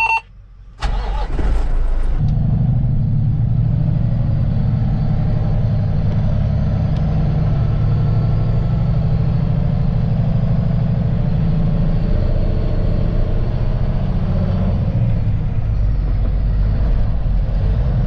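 A sudden loud noise about a second in, then a semi truck's engine running steadily, heard from inside the cab as the truck drives along a dirt road.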